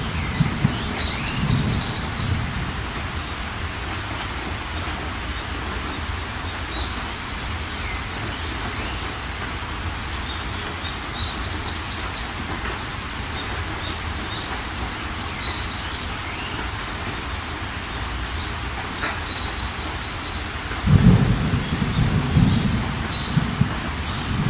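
Steady rain falling with low rolls of thunder, a louder rumble near the end. Short high chirps from birds recur every few seconds over the rain.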